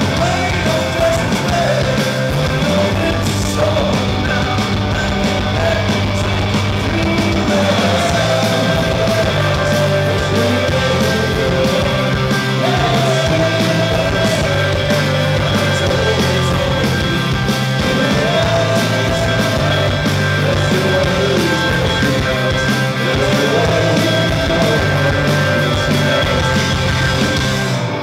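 Rock band playing live in a club: electric guitars, bass and drums in a fast punk-rock song, with a sung melody over them.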